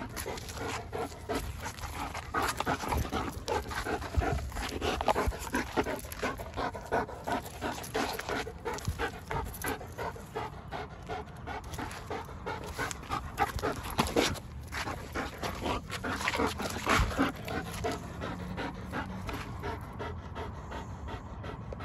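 A German Shepherd-type dog panting quickly, in short fast breaths, with a rubber ball toy held in its mouth, from the exertion of tug-of-war play.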